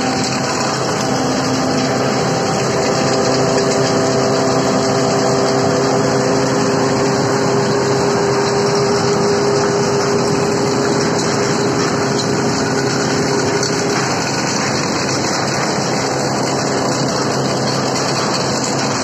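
Grain threshing machine running steadily: a loud, even machine noise with a few steady hums in it, one of which fades about two-thirds of the way in.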